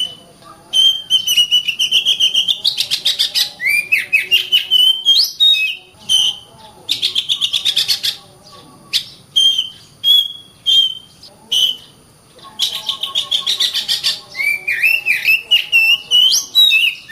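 Oriental magpie-robin (kacer) singing vigorously: phrases of fast chattering notes mixed with clear whistles that slide up and down, broken by short pauses about six and twelve seconds in.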